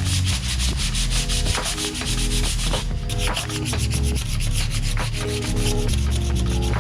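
Sandpaper rubbing over a wooden tabletop in quick, even strokes, scratching off the old finish.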